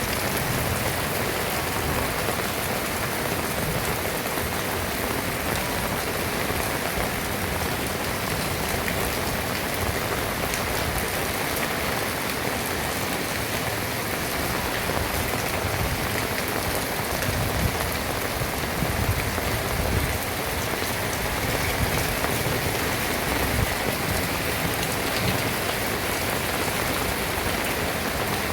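Heavy rain pouring down and pattering on surfaces, a steady dense hiss.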